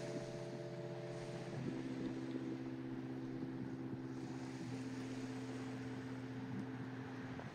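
Soft background music of held chords that change about every three seconds, over a steady faint hiss.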